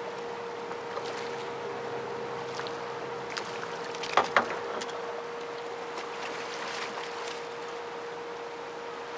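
Steady rush of turbulent dam tailwater with a thin, steady hum underneath it. Two sharp knocks come close together about four seconds in.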